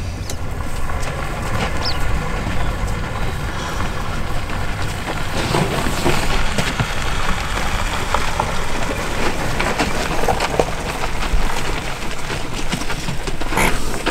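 Steady noise of idling safari vehicle engines, mixed with wind on the microphone, and a brief sharper noise near the end.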